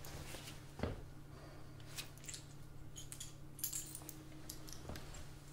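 A few soft footsteps on a hard floor, the clearest about a second in and another near the end, with scattered light metallic clinks and jingles, over a low steady room hum.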